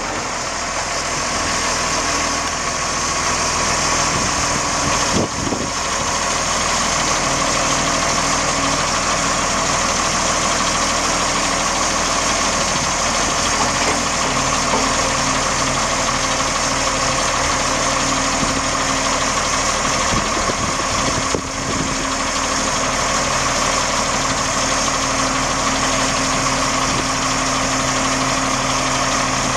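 Case 1085B wheel excavator's Detroit six-cylinder turbo diesel engine running steadily while the boom and bucket are worked. Its note shifts pitch a few times as the hydraulics load it.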